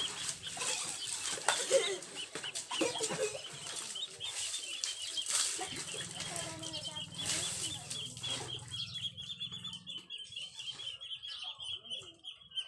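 Water splashing and sloshing as it is scooped from a bucket with a plastic dipper and poured over bicycles, the splashes thinning out after about nine seconds. A rapid, high-pitched chirping trill goes on throughout.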